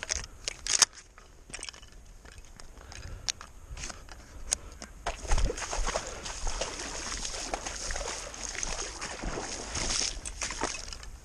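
Scattered rustles and knocks, then about five seconds in a heavy splash as a retriever dog plunges into river water, followed by steady splashing and sloshing as it swims out toward a downed duck.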